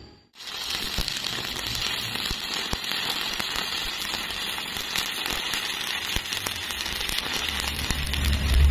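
Stick (shielded metal arc) welding on steel plate: the arc strikes about half a second in, then crackles steadily with many small pops as the electrode burns along the butt joint. A low hum rises under it near the end.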